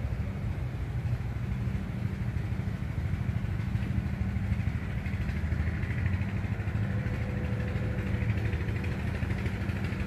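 A small engine running steadily at a constant speed, a low, even drone that does not rise or fall.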